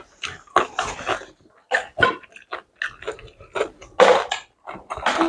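People eating pounded yam with ogbono soup, making quick, irregular chewing and mouth sounds.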